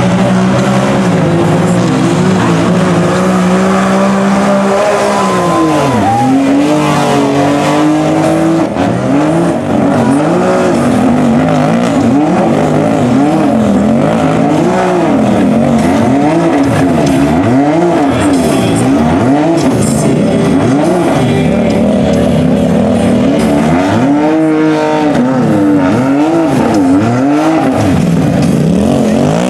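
Side-by-side UTV engines revving hard while churning through deep mud. The note is held high for the first few seconds, dips and climbs again near six seconds, then rises and falls over and over, roughly once every second or two, as the machines fight to push through.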